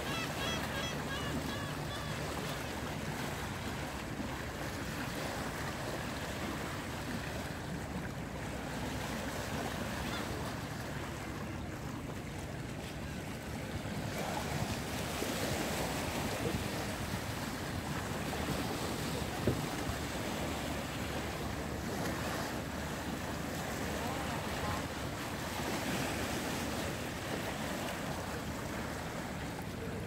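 Small sea waves washing and breaking over the rocks of a seawall, a steady surf wash that swells a little about halfway through, with wind buffeting the microphone.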